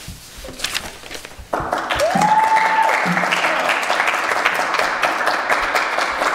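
Audience applause that breaks out suddenly about a second and a half in and carries on steadily, with a high whooping cheer rising and held for about a second soon after it starts.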